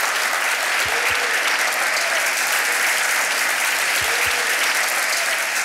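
A large audience applauding, steady dense clapping throughout.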